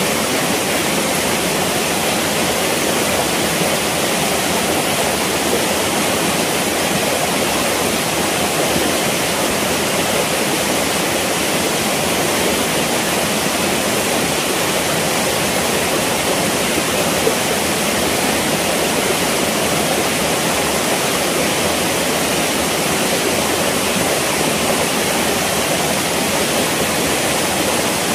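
Shallow stream running over rocks: a steady, unbroken rush of water.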